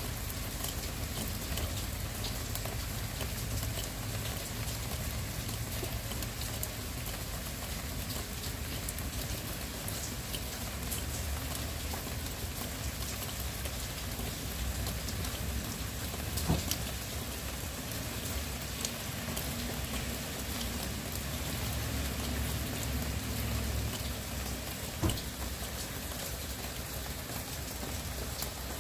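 Steady rain falling, a continuous hiss of drops on a surface with fine scattered drips. Two louder single drips stand out, one just past the middle and one near the end.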